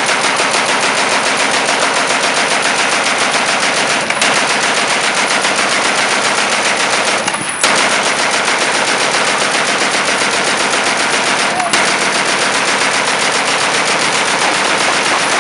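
A Colt-Browning M1895 'potato digger' belt-fed machine gun firing .30-06 on full auto in long, nearly unbroken strings of rapid shots, with brief breaks about 4, 7.5 and 12 seconds in.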